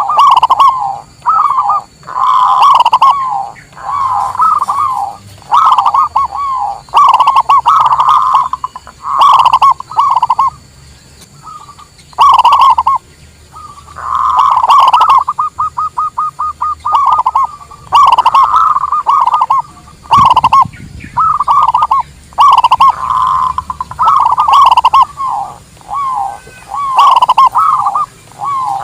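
Zebra dove (perkutut) cooing: loud, rhythmic coo phrases repeated one after another with short pauses, and a fast run of short clipped notes about halfway through.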